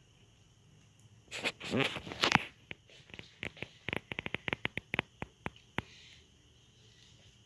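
Plastic test tube and its snap lid being handled: a second of rustling and scraping, then a quick, irregular run of small sharp plastic clicks.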